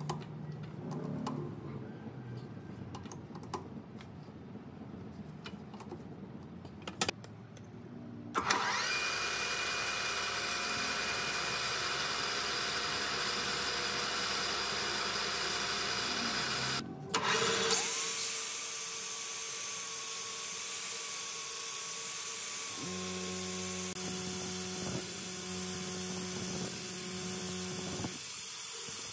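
A few light clicks and knocks, then an electric power tool starts about eight seconds in and runs steadily. It cuts out briefly a little past halfway and starts again.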